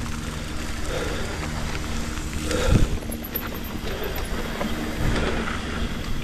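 Mountain bike riding down a rough trail, heard from a chest-mounted camera: tyre and trail noise with constant small knocks and rattles, and one loud jolt about three seconds in.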